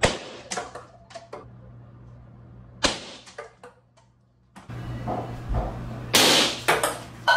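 A ping-pong ball bouncing on hard surfaces: a series of light taps that come faster and faster as it settles, twice over. A louder noisy burst follows about six seconds in.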